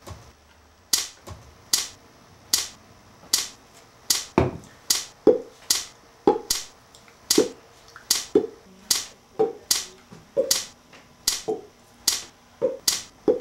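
A long series of sharp pops, starting about a second in and coming faster, at about two a second later on; many pops end in a short hollow tone.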